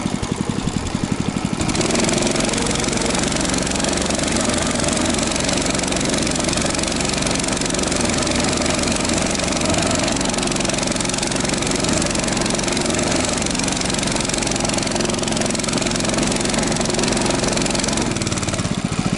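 Albatros motorized towing dog (mini snowmobile) engine idling with a rapid, even chug, then revving up about two seconds in and running hard and steadily at high revs, dropping back to idle near the end.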